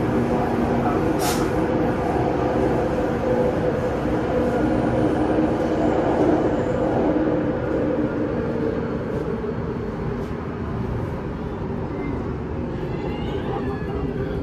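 Singapore MRT train running, heard from inside the carriage: a steady rumble with a motor whine, getting a little quieter in the second half. There is a brief high hiss about a second in.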